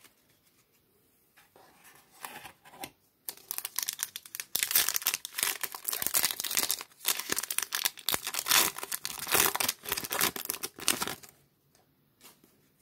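Foil wrapper of a baseball card pack being torn open by hand and crinkled: a dense crackling that starts about three seconds in and stops about a second before the end.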